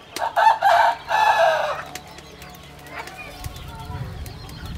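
A rooster crowing once, a loud call about a second and a half long with a brief break in the middle. Faint small bird chirps sound in the background.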